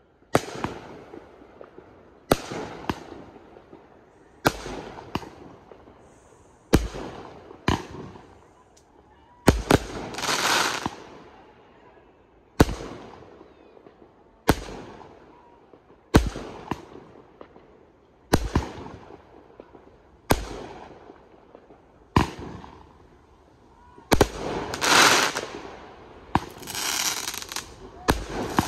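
Aerial firework shells bursting overhead: a sharp bang about every two seconds, each trailing off in a decaying echo. Longer noisy stretches of burst effects come about ten seconds in and again near the end.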